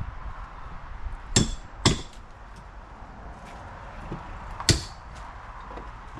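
Hammer blows on wooden decking as the old boards are knocked loose: three sharp strikes, two close together about a second and a half in and one near the end, with a lighter knock just before it.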